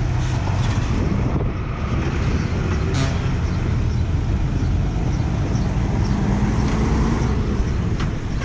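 Diesel engine of a loaded Isuzu Forward dump truck running at low revs as it creeps forward: a steady low rumble.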